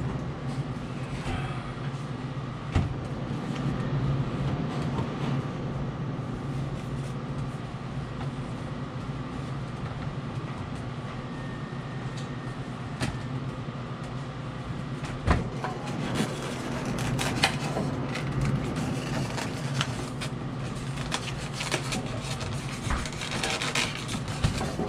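Hand work on an ice machine's auger and gear motor housing: scattered clicks and knocks of handled parts, more frequent in the second half, over a steady low hum.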